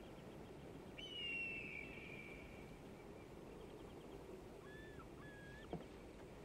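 Quiet outdoor ambience with bird calls: a long whistled call falling in pitch about a second in, then two short whistled notes near the end.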